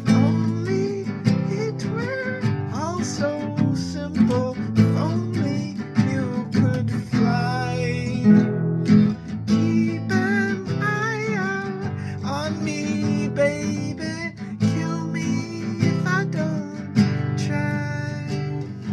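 Acoustic guitar playing an instrumental passage of the song: steady strummed chords with a higher melody line over them that bends and slides in pitch.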